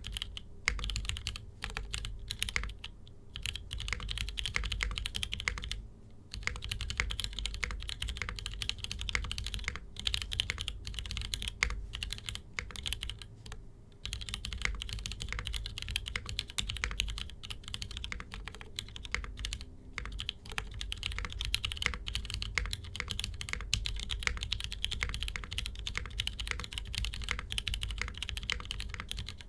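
Typing on a Mode65 custom mechanical keyboard, with lightly lubed linear frankenswitches (Cherry MX Black stems and bottoms, JWK black tops, 60 g Gateron springs) under GMK keycaps on an aluminium full plate, isolated top mount. A steady, fast run of keystrokes with a few brief pauses.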